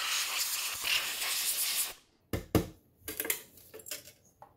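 Canned compressed air spraying through its thin straw in a steady hiss, cutting off about two seconds in. Then a few short knocks and clicks as parts are handled and set down on the bench.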